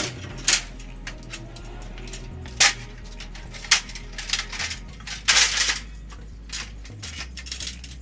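Metal tools and gear being handled: a string of sharp clinks, knocks and rattles from a technician's tool belt, a truck-bed tool drawer and an aluminium stepladder being set up. The loudest knocks come about half a second in and again near two and a half, three and a half and five and a half seconds.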